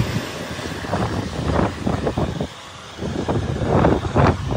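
Gusty storm wind buffeting the phone's microphone in irregular rumbling bursts, with a short lull about halfway through.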